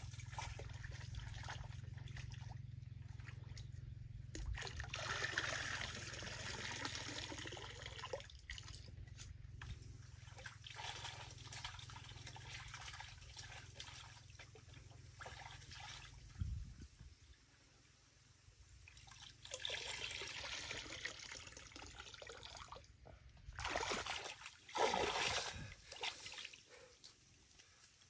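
Water sloshing and trickling as a metal pan of chopped snake meat is dipped and swirled to rinse it in shallow stream water, with several louder swishes.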